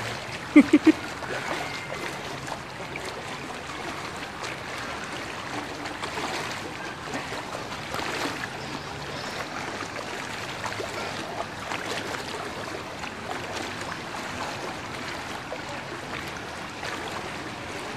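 Floodwater sloshing and splashing steadily around legs wading through it, with three quick pitched blips just under a second in.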